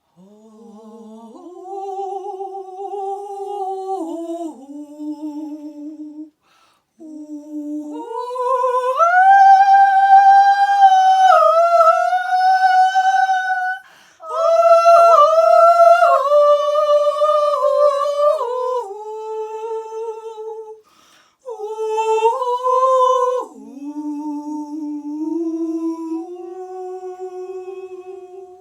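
Unaccompanied female voice singing a slow melody in long held notes. It climbs to high notes in the middle, with short pauses between phrases.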